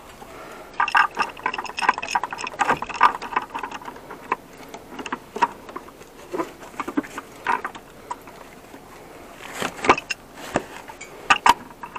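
Pipe wrench clinking and knocking against the metal fittings on top of a water heater as it is worked loose. A dense run of ringing metal clinks comes about a second in, then scattered clicks and a few sharp knocks near the end.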